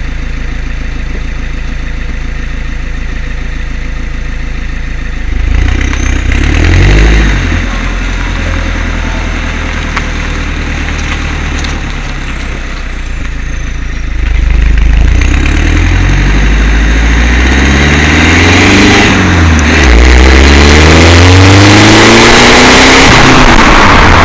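Alfa Romeo Giulietta 1.6 diesel heard right at its tailpipe, through a de-restricted exhaust: DPF removed, 55 mm pipe, twin 71 mm silencers, remapped ECU. It idles steadily, blips up and back down once about six seconds in, then idles again. From about fourteen seconds it gets louder, with the pitch climbing and dropping several times as the car pulls away through the gears, and it ends in a steady, loud run.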